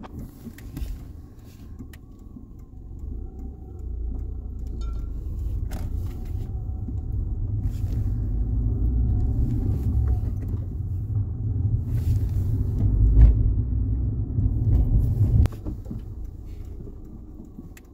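Fiat Panda driving, engine and road noise heard inside the cabin as a low rumble. It grows louder from about four seconds in and drops off suddenly near the end.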